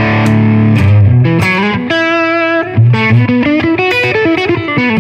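Electric guitar played through a Line 6 HX Stomp XL modeller with a compressor and an overdrive on, a rhythm tone. Several chords are struck in turn and left to ring.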